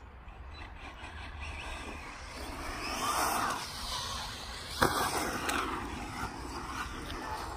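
Electric RC car being driven on a dirt track: motor and tyre noise swelling to its loudest about three seconds in, and a single sharp knock just under five seconds in, the loudest moment.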